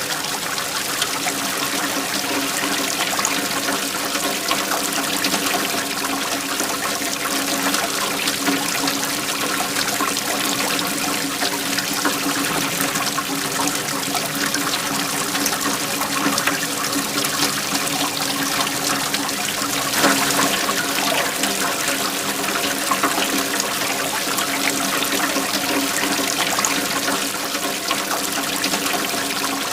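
Waterfall: a steady rush and splash of flowing water, with a brief slight surge about two-thirds of the way through.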